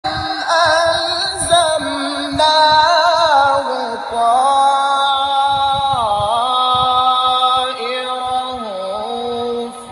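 Music with a singing voice holding long notes, ornamented with quick wavering turns and several slow slides down in pitch.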